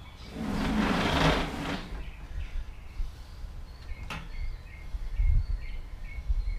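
A scraping rustle lasting about a second and a half, then a single sharp click about four seconds in, as an air compressor's handle is handled and fitted into place. Faint high chirps recur in the background.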